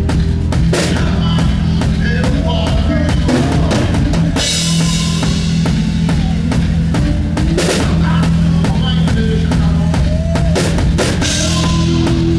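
Band soundcheck led by the drum kit: kick, snare and rim hits over steady held bass notes. A burst of cymbals comes in about four seconds in.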